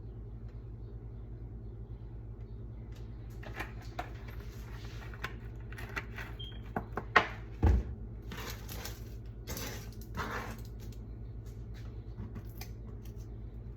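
A fan hums steadily while kitchen items are handled: scattered clicks and clunks, a sharp knock and a heavy thump about halfway through, then two short hisses. The handling is someone getting out grease for a frying pan.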